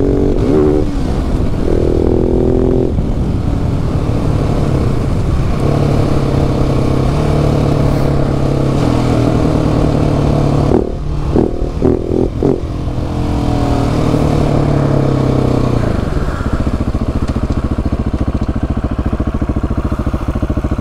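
KTM 690 SMC-R single-cylinder engine heard from on the bike while riding: it holds steady revs that step up and down in pitch, breaks up into short choppy bursts about eleven seconds in, then settles into a lower, even beat near the end.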